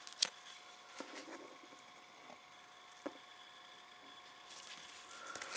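Faint clicks and light rubbing of a trading card in a rigid plastic holder being handled and turned over by hand, over quiet room tone.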